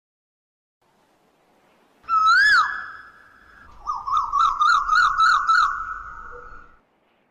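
A bird's whistled call: one note that swoops up and back down, a short held note, then a fast wavering trill of about four rises a second that stops suddenly near the end.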